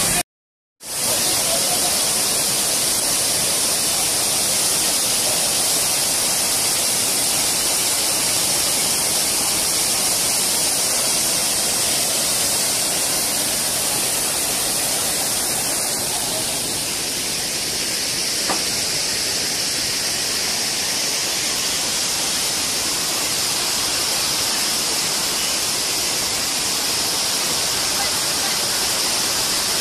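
Waterfall in heavy flow: a steady rush of falling water, cut to silence for a split second just after the start.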